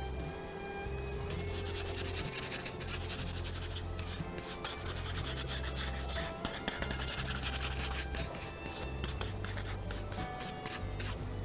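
Paintbrush scrubbing paint across textured canvas in repeated rough strokes, over background music with a low bass line that changes note about once a second.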